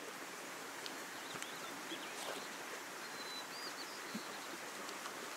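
Faint outdoor background hiss with a few faint, high bird chirps about three seconds in, and scattered light clicks and rustles as a dog pack is strapped onto a dog.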